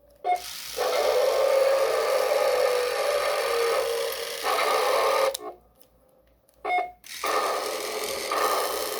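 Toy robot's built-in electronic sound effects playing through its small speaker, with its motor running, as it is driven by remote control. Each run opens with a short beep. The sound stops for about a second midway, then starts again with a pulsing rhythm of about one beat a second.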